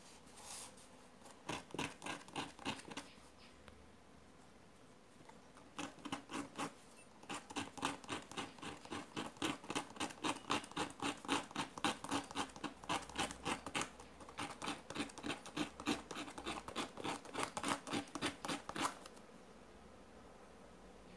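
Flatlock sewing machine looper point being rubbed back and forth on a small piece of fine sandpaper (about 200 grit), a quick, even scratching of repeated strokes. It is a short run of strokes, then a pause, then a long steady run that stops a couple of seconds before the end. The looper point is being smoothed down after damage.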